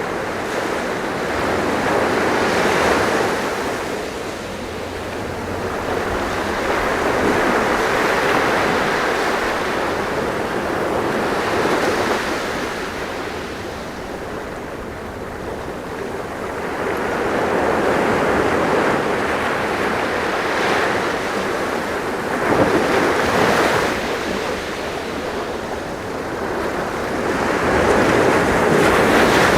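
Sea waves breaking and washing on a shore, a continuous rush that swells and eases every few seconds, with some wind.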